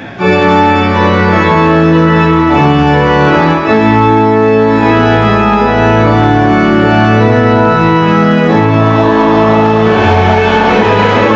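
Church organ playing full, sustained chords over a low pedal bass line, the chords changing step by step about once a second.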